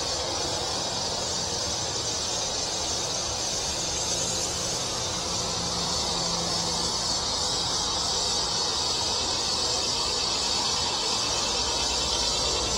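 Steady, unbroken high-pitched drone of insects calling in the weeds, with a low rumble underneath.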